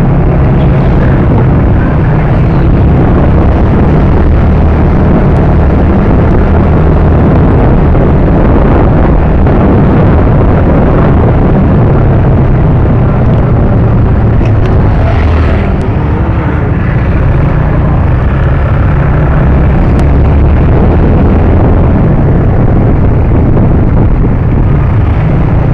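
Motorcycle on the move: engine and wind rumble, loud and steady enough to overload the microphone into a harsh roar, easing briefly about two-thirds of the way through.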